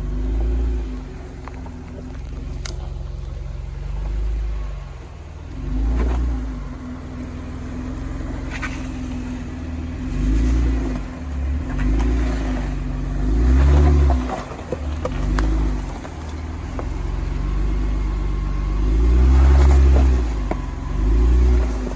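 Jeep JK Wrangler's V6 engine crawling a rock obstacle in low range, revving up in repeated bursts of throttle and settling back between them, with a few sharp knocks of tires or underbody on rock.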